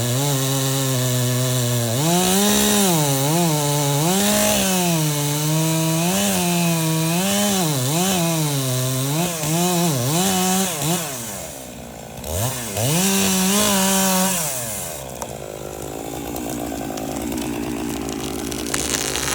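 Chainsaw running hard, its engine pitch dipping and recovering over and over as it is worked through wood. About two-thirds of the way in it drops off, revs back up and holds, then falls away to a lower, steadier running sound.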